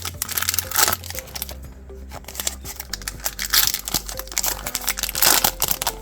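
Crinkling and tearing of a trading card pack wrapper being opened and handled, with many quick crackles, over steady background music.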